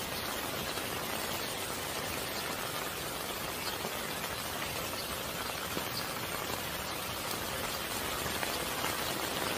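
Steady rain falling on leaves and soil, an even hiss.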